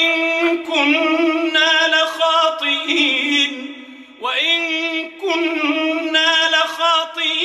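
A man chanting Quran recitation in the melodic tajweed style: long drawn-out phrases with ornamented turns in pitch, broken by a short pause for breath about four seconds in.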